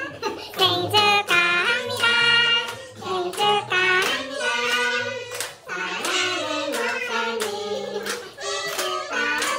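A group of people singing a birthday song together, clapping their hands in time.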